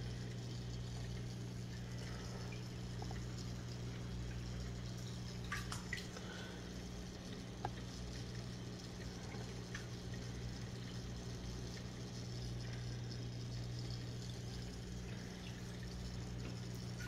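Aquarium equipment running: a steady low electrical hum from a pump, with faint trickling water and a couple of small clicks.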